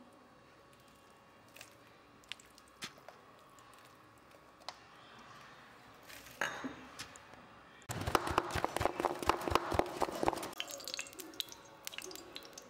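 Lemon juice dripping onto flour- and spice-coated fish pieces in a steel bowl: a few faint drips and ticks. Then, about eight seconds in, a couple of seconds of loud wet squishing and crackling as the coated pieces are mixed, followed by a lighter crackle.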